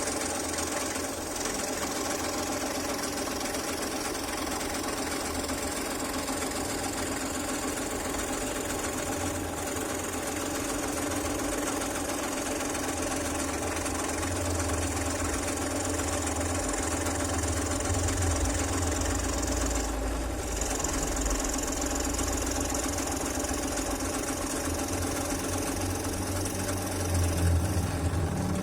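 Electric scroll saw running steadily, its blade reciprocating with an even mechanical buzz.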